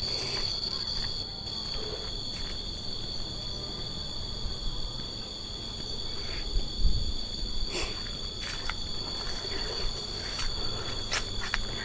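A steady insect chorus of shrill tones at several fixed high pitches, with occasional faint clicks and rustles over it.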